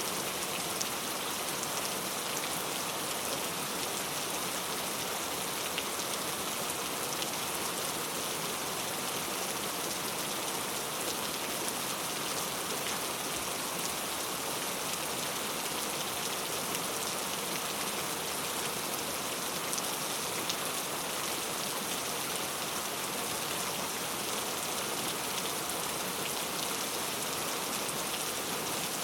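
Heavy rain falling steadily, a dense even hiss of drops with fine scattered patter on a surface.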